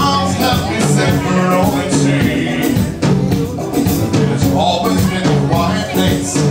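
Live band playing an upbeat song: a man singing into a microphone over electric guitar, keyboard and a steady drum beat.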